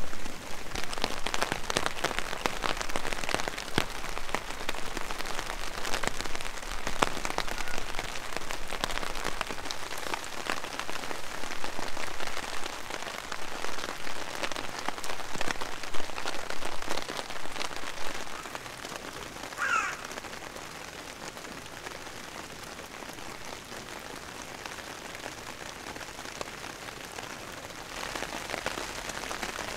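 Rain falling on a camping tarp, a dense patter of close drop ticks over a hiss. About two-thirds of the way in it becomes quieter and smoother, and a bird calls once.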